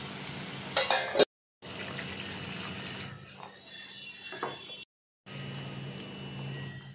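Hot water going into a pan of frying curry masala, with a steady hiss and bubbling. There is a louder burst about a second in, and the sound cuts to silence twice, briefly.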